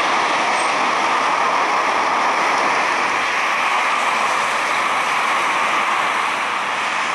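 CFM56 turbofan engines of a Boeing 737-800 running steadily at taxi power, a continuous jet rush as the airliner rolls along the taxiway.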